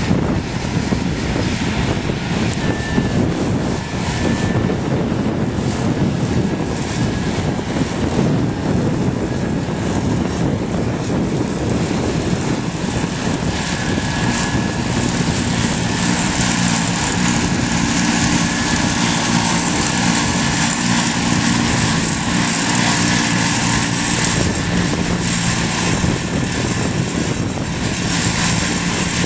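Tractor diesel engine running steadily, with a constant mechanical drone; its engine tone stands out more clearly from about halfway through.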